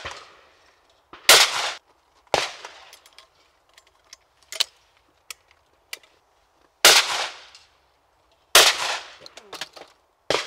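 Shotgun shots at clays from hammer guns: a loud shot about a second in and a lighter one soon after, then a few small sharp clicks, then two more loud shots a second and a half apart and a fainter one near the end, each with a short ringing tail.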